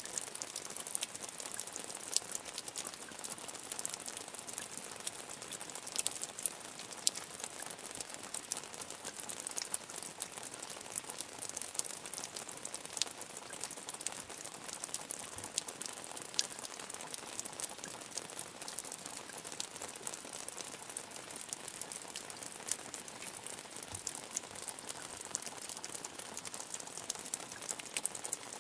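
Medium rain falling steadily, with a constant hiss and many sharp drop ticks scattered throughout.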